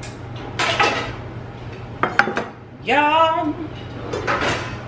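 Kitchen clatter of dishes and utensils being handled: scattered scrapes and knocks, with a couple of sharp clinks about two seconds in. A short rising vocal sound comes near the middle, over a steady low hum.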